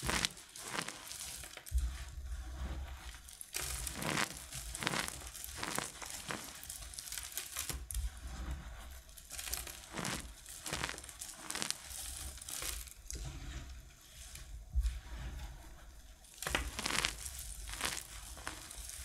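Hands squeezing and crushing crumbled dry soap coated in starch: a dry crunching and crinkling that comes in irregular handfuls, with soft low bumps of the hands on the table.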